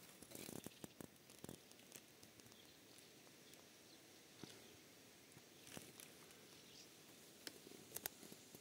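Near silence with faint outdoor hiss and a few scattered soft clicks, two of them close together near the end.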